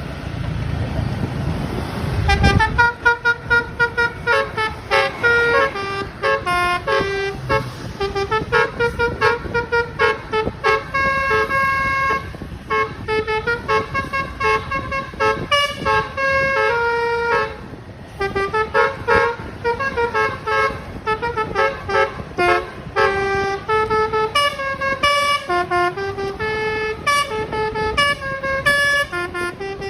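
Telolet bus horn playing a fast, stepping melody of multi-tone notes. It starts about two and a half seconds in, after a low rumble, and pauses briefly about halfway through.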